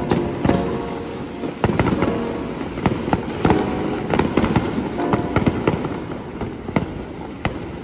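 Fireworks going off in a rapid run of cracks and pops, with a few louder bangs standing out.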